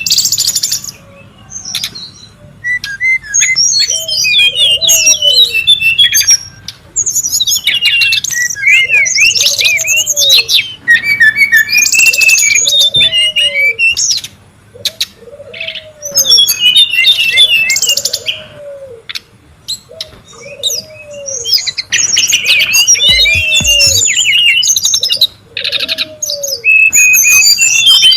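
Brown-chested jungle flycatcher singing loud, jumbled phrases of quick chirps and trills, in bursts of a few seconds with short gaps between. Beneath the song a low, short arched note repeats about every two seconds.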